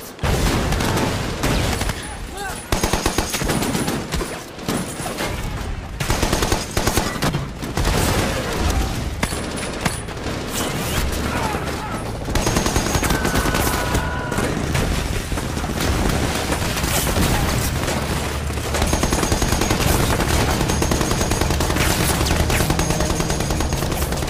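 Heavy machine-gun and rifle fire in a night battle, dense and almost unbroken, with a man's yell about halfway through.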